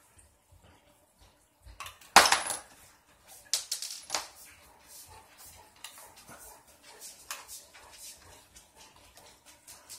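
A loud metallic clatter of small metal hardware landing on a wooden floor about two seconds in, followed by a few lighter clinks a second or two later. Faint clicks from a screwdriver working screws on the RC car's chassis come between them.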